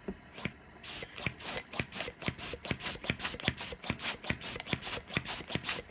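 Hand-operated balloon pump puffing air in quick repeated strokes, a sharp hiss about four times a second, blowing on a fidget spinner to keep it turning. Two weaker puffs come first, and the strong, steady pumping starts about a second in.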